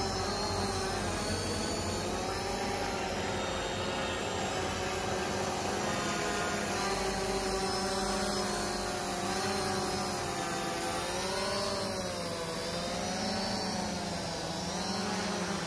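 Hexacopter drone's six motors and propellers buzzing steadily in flight, their pitch rising and falling as the motors adjust, with the swings strongest in the last few seconds.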